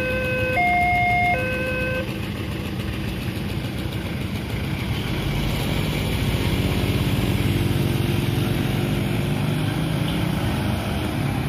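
Railway level-crossing alarm sounding its alternating two-pitch electronic tones, then cutting off about two seconds in: the sign that the train has passed and the crossing is reopening. Motorcycle and truck engines follow, getting louder as traffic moves off over the crossing.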